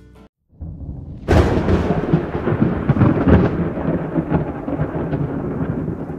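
Thunderstorm: after a brief silence a low rumble of thunder comes in and breaks into a loud crack about a second in. It then rolls on over heavy rain, slowly easing.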